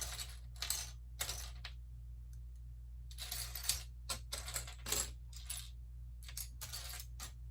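Small plastic Lego pieces clattering and rattling against each other in several short bursts of quick clicks, as loose pieces are rummaged through.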